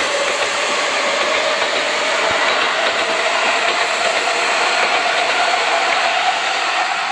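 Seibu 6000 series electric train accelerating away on departure: its traction motor whine rises slowly and steadily in pitch over a loud rumble of wheels on the rails.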